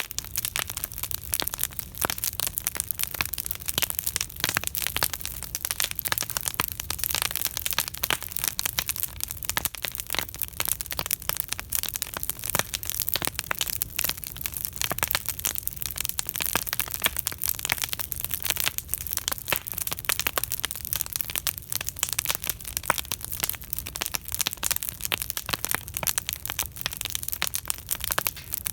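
Campfire crackling and popping: a dense, irregular stream of sharp snaps that keeps up without a break.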